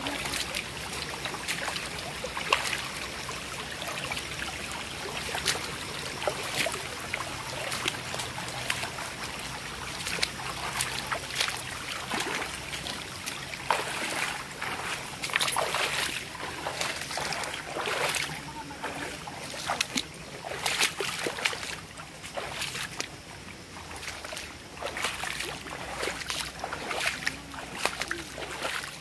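Footsteps splashing and sloshing through a shallow, rocky stream, in irregular steps over the steady trickle of water running between stones.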